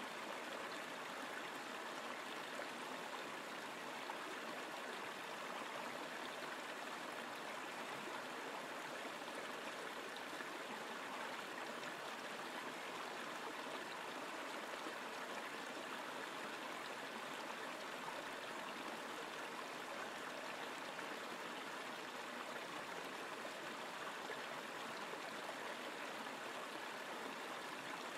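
Shallow river rushing steadily over rocks in a riffle, an even, unbroken water noise.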